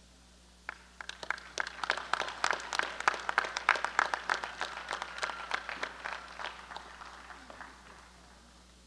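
Audience applauding: a few claps start about a second in, build to full applause around three to four seconds, then thin out and fade near the end.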